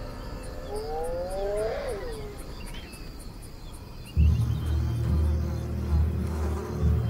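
Evening savanna insects chirping steadily at about four chirps a second, with one long rising-then-falling whoop about a second in, likely a spotted hyena. About four seconds in, a louder low rumbling drone comes in and pulses, and it is the loudest thing from then on.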